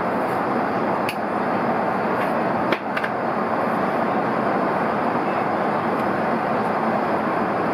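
Steady cabin noise of a jet airliner in flight on its descent, with a few small clicks about one second and about three seconds in.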